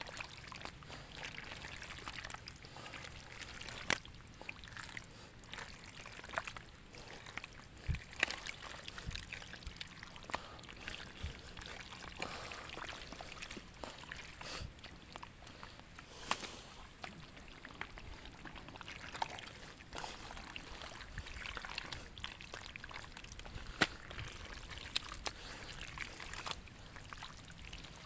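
Shallow water splashing and trickling, with scattered sharp splashes throughout.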